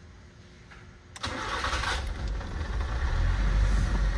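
Nissan Sentra's engine cranked by the starter about a second in, catching at once and running on with a steady low rumble. It starts at the first turn of the key after its ignition timing has been re-set.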